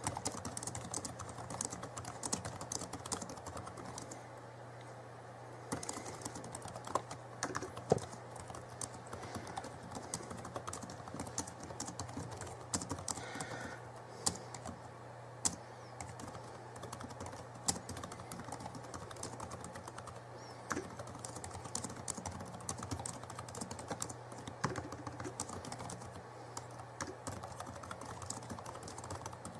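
Light, irregular clicking and tapping, like typing on a keyboard, with a steady low hum underneath.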